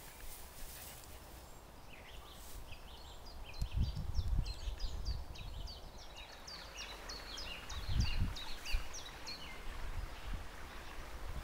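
A songbird singing a long run of quick, high chirping notes, with two bursts of low rumble on the microphone about four and eight seconds in.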